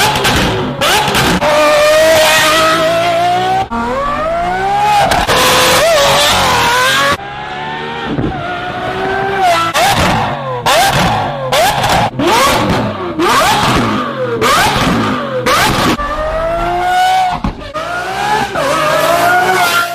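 Lamborghini Aventador SVJ's V12 through a Gintani exhaust, revving hard in a string of short spliced takes. The pitch climbs and drops again and again, with abrupt cuts between takes.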